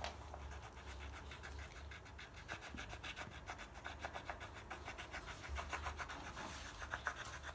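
Pencil scribbling on paper over a wooden drawing board: quick back-and-forth strokes as an area is shaded in black.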